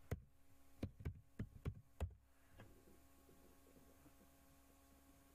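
Computer keyboard keys clicking as a word is typed, about seven keystrokes in the first two and a half seconds. After that there is only a faint steady electrical hum.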